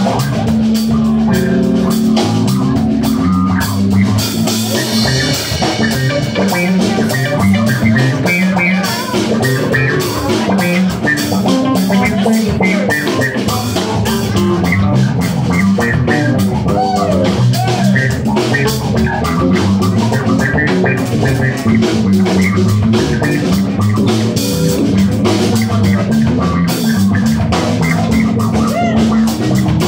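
Live rock trio playing: electric guitar, bass guitar and drum kit, with a steady drum beat under the guitar lines.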